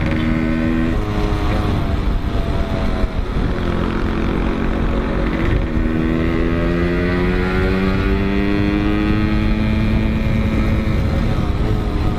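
Suzuki Shogun underbone motorcycle's single-cylinder four-stroke engine, heard from the rider's seat with wind rush. The revs drop in the first second or two, hold unevenly, then climb steadily through the second half as the bike accelerates.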